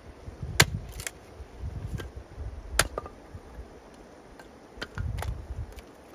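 A handful of sharp knocks or taps, two much louder than the rest, about half a second in and near three seconds in, with low dull thumps around them.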